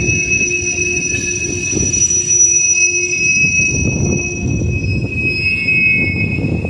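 CSX freight train of autorack cars rolling past at a grade crossing: a steady low rumble of wheels on rail with a sustained high-pitched wheel squeal throughout.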